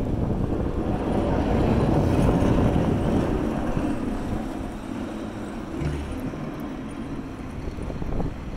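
A vehicle driving past on a city street, growing louder to a peak about two to three seconds in and then slowly fading.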